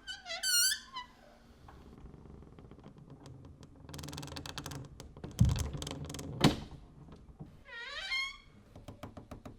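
Old door hinges squeaking and creaking. A short pitched squeal comes near the start, then a slow crackling creak runs through the middle, broken by two sharp knocks, and a falling-then-rising squeal comes near the end.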